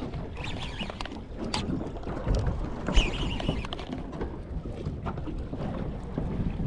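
Wind buffeting the microphone over water slapping against a small aluminium boat, with scattered knocks and a brief high squeak about three seconds in.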